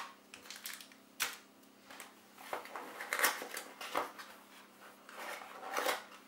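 A small cardboard box being picked up and opened by hand on a wooden table: a few sharp, irregular knocks and scrapes of cardboard and the box against the tabletop.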